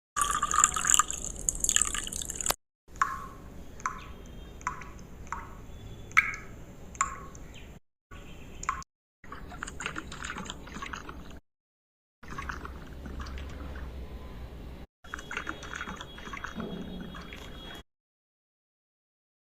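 Liquid dripping in a string of separate drops, about one every half-second, between short clips of splashing and trickling liquid. Each clip cuts off suddenly into silence.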